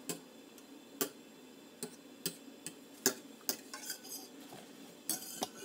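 Metal fork clinking and scraping against a glass dish while beating eggs and cream with cinnamon, in sharp, irregular clinks about every half second to a second.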